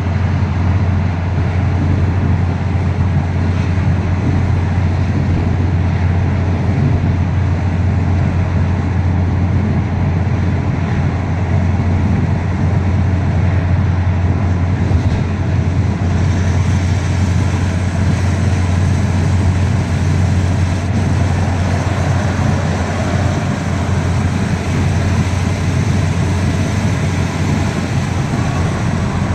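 Steady road and engine noise of a moving car heard from inside its cabin, a constant low rumble under the tyre hiss.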